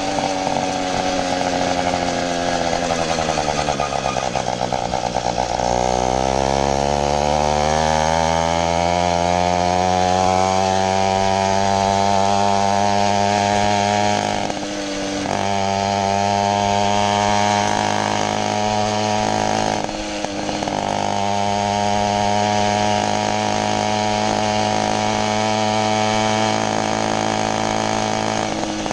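80cc 2.5 horsepower two-stroke motorized-bicycle engine running on the move. The revs drop over the first five seconds, then climb back and hold steady, dipping briefly twice later on.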